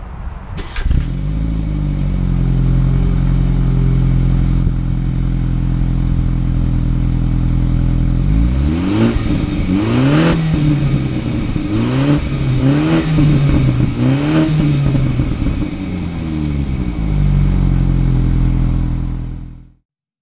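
Exhaust of a 2018 BMW 430i's 2.0-litre turbocharged four-cylinder engine. It catches about a second in and settles to a steady idle, is blipped in five quick revs in the middle, then idles again. The sound fades out just before the end.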